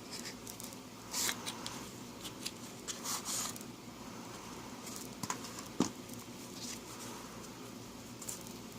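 Faint rustling and a few light taps and clicks as a small cardboard trick-deck box and its packaging are handled.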